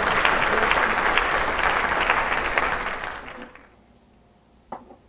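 Crowd applause that starts suddenly and fades away over about three seconds. A single short knock near the end.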